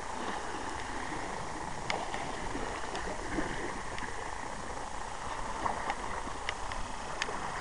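Waves splashing and washing against the rocks of a breakwater, a steady wash with a few short sharp clicks scattered through it.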